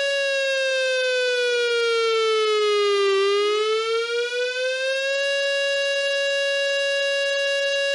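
South Korean civil defence air-raid warning siren wailing: a steady tone that slowly falls in pitch, bottoms out about three seconds in, then rises back and holds before starting to fall again at the end. It signals a real air-raid warning.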